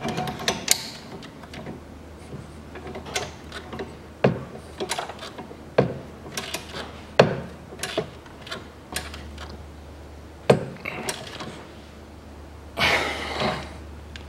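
Hand ratchet wrench clicking in short, irregular runs, with several sharper metal clanks of tools against the engine mount bracket, as the bolts of a new front engine mount are tightened. There is a brief scraping rustle near the end.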